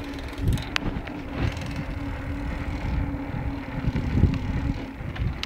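Wind buffeting the microphone of a bicycle riding along at about 19 km/h, with uneven low rumbling, a steady low hum, and two sharp clicks about a second in.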